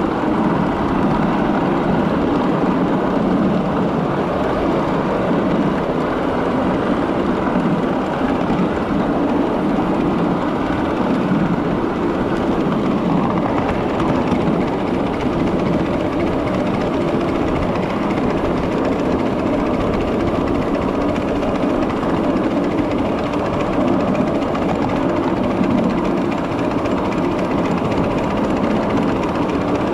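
Miniature 7.5-inch gauge railroad train running along the track: a steady rumbling running noise with no breaks.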